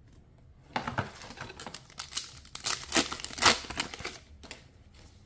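Foil MetaZoo Native booster pack wrapper crinkling as it is handled and torn open. The crackly rustles start about a second in and are loudest around three seconds in.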